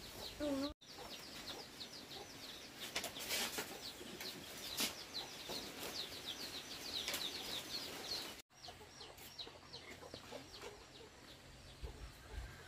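Chicks peeping continuously: a rapid string of short, high, falling peeps, with a few faint knocks.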